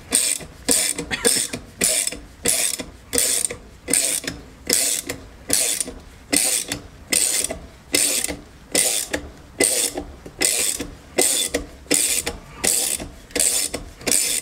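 Ratchet wrench clicking in quick repeated strokes, about two a second, turning the threaded rod of a silent-bloc extraction press to push the old rubber bushing out of a car's rear upper wishbone.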